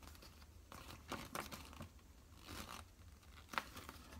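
Paper instruction booklet rustling and crinkling faintly as it is handled and unfolded, in a few short rustles.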